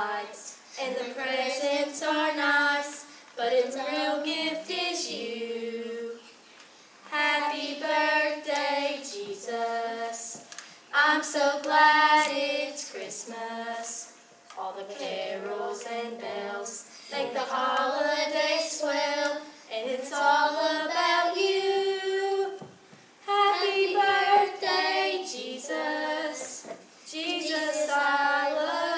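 A small group of girls singing together without instruments, in phrases of a few seconds with short pauses between them.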